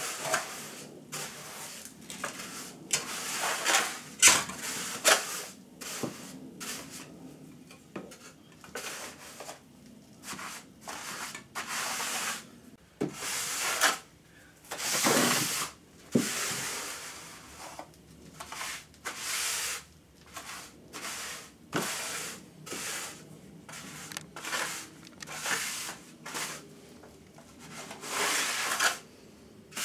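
Flat trowel scraping and smoothing a wet mortar-mix shower pan bed in many short strokes at an irregular pace, floating the mortar to a slope toward the drain.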